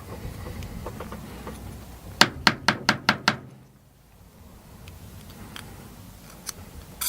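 Six quick sharp taps in just over a second, a metal tool knocked against a nut to drive it into the nut slot of a plastic printer part.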